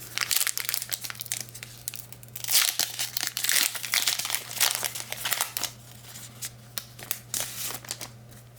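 Foil trading-card pack wrapper crinkling and tearing as it is pulled open by hand, in many irregular rustles, busiest in the first half and tapering off near the end.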